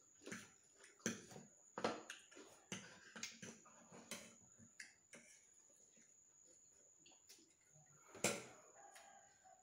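Metal forks clicking and scraping against ceramic bowls while noodles are eaten, in irregular short clicks, the loudest about eight seconds in.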